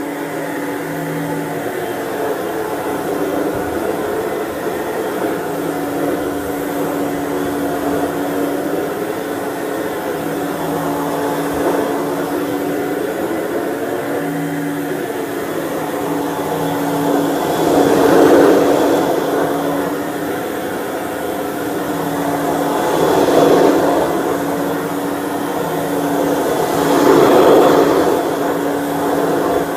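Dirt Devil Broom Vac stick vacuum running steadily with a motor hum. Three louder swells come in the second half.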